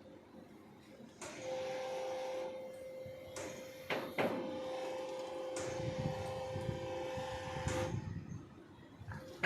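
Concreting machinery on a slab pour running with a steady whine over a clattering rumble, joined by a few sharp knocks about three to four seconds in; the machine stops about a second before the end.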